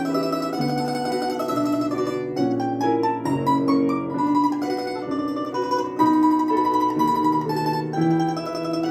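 A plucked string instrument playing a slow melody, with held notes and chords.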